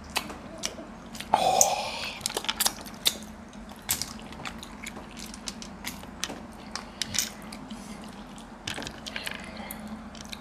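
Cooked clam shells clicking and clacking irregularly as the clams are picked open by hand and the empty shells set down, with chewing between. One louder, longer rasping noise comes about a second and a half in.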